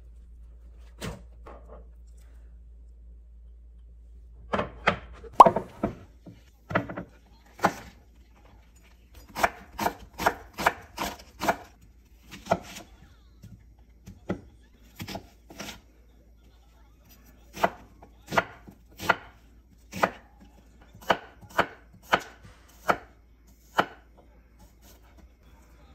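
Kitchen knife chopping on a wooden cutting board, cutting through an onion and then slicing garlic cloves. The knocks are irregular at first, then settle near the end into a steady beat of a little over one stroke a second.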